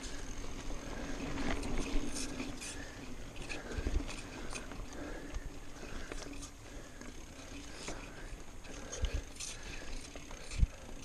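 Mountain bike rolling fast down a dirt trail: continuous tyre noise on dirt with rattling clicks from the bike. Several low thumps come as it hits bumps, the loudest a little after halfway and near the end.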